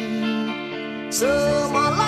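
Background music: a Malay-language song with guitar accompaniment. A singer's voice comes in about a second in on a long held note.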